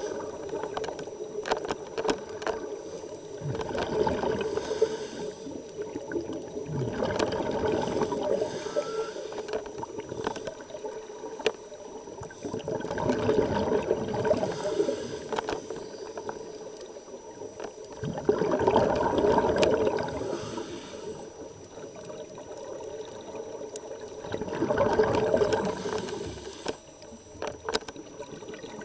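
Scuba divers breathing through their regulators, heard underwater: about five long bursts of exhaled bubbles, each two to three seconds, bubbling and gurgling, with a thin hiss of inhalation between them.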